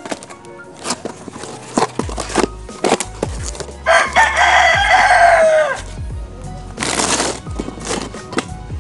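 A rooster crows once, about four seconds in, the call falling in pitch at its end. Around it come scattered light knocks and taps as a painted aluminium engine cover is handled and set on a cardboard box.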